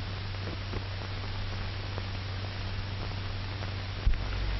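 Steady hiss and low hum of an old 1940s film soundtrack, with a few faint crackles and a sharper click about four seconds in.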